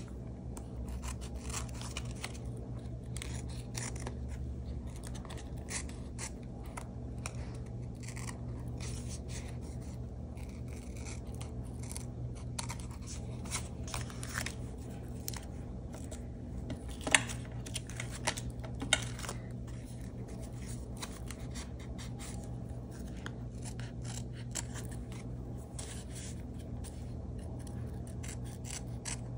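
Small craft scissors snipping again and again, trimming paper and washi tape along the edges of a card, with a few louder snips past the middle. A steady low hum runs underneath.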